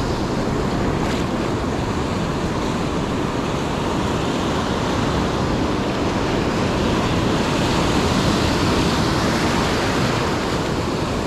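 Ocean surf breaking and washing up a sandy beach, a steady rushing wash that grows a little louder in the second half.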